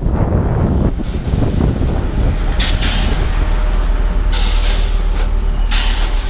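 Passenger train standing at the platform: a steady low rumble with short hisses of air from its brakes, three times.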